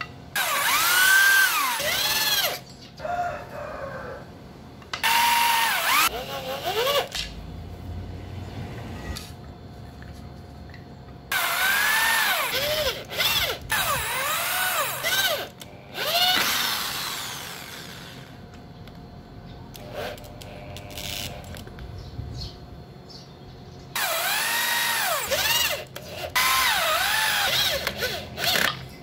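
Corded electric drill drilling into wooden strips in several bursts, the motor whine rising in pitch as the trigger is squeezed and falling away as it is released, with short pauses between holes.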